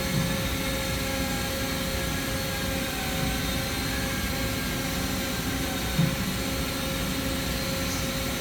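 Steady machine hum of a CNC horizontal boring mill, with a steady mid-pitched tone running through it. Two short low thumps come in, one at the very start and one about six seconds in.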